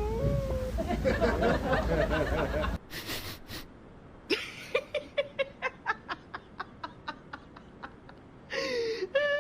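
People laughing: first a dense stretch of laughter, then, after an abrupt change about three seconds in, a run of short, evenly spaced giggling bursts, a few per second.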